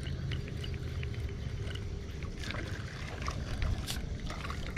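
Kayak on open water: a steady low rumble with scattered light clicks and ticks.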